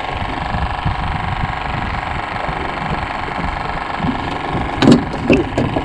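A boat's motor running steadily with an even drone. A sudden clatter of sharp knocks about five seconds in is the loudest moment.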